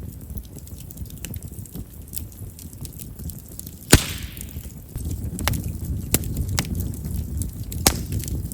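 Chestnut firewood burning in a bonfire: small crackles over a low rumble of flames, with one loud sharp pop about four seconds in that trails off in a brief hiss, and another sharp pop near the end. Chestnut is known as a popping firewood because of its large vessels.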